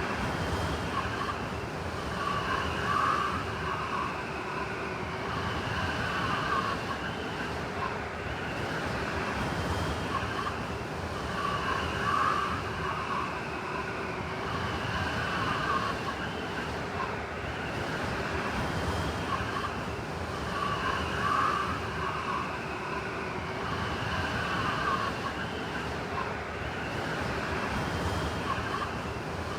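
Blizzard wind blowing steadily, with a wavering whistle that swells about every nine seconds.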